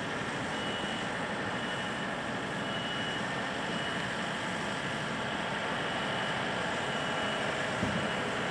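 Steady hiss of a car's engine and heater blower heard inside the cabin, with faint high beeps sounding briefly a few times.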